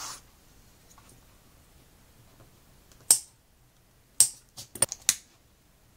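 Sharp clicks of small metal hand tools being handled on a cutting mat: one about three seconds in, then four in quick succession between four and five seconds.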